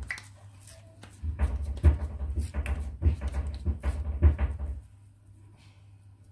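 Wet hands patting and pressing spiced mashed potato into a patty: a run of soft, quick slaps with dull thumps, starting about a second in and stopping near the end.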